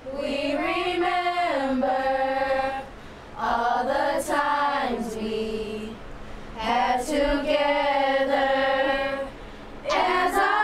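A group of young girls singing together without accompaniment, in long held phrases with short pauses for breath about every three seconds.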